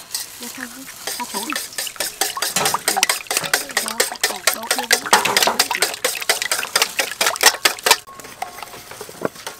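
Wire whisk beating raw eggs in a stainless steel bowl: a fast run of clicks as the wires strike the metal, stopping about eight seconds in. Voices follow near the end.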